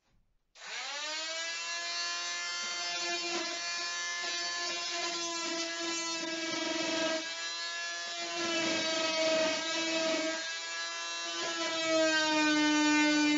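Handheld electric power tool starting up about half a second in with a rising whine, then running at high speed, its pitch sagging again and again as it is pushed into the wood. It is trimming the top edge of the wooden hull planking down to a new sheer line.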